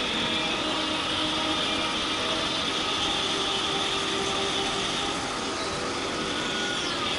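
Motorcycle engine running steadily at road speed over wind and road noise, with a brief drop in pitch near the end.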